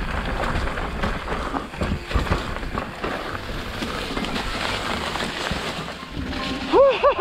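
Mountain bike riding a dirt-jump trail: wind rushing over an action camera's microphone, with tyre noise and rattling knocks from the bike. Near the end a rider gives a few short, high shouts.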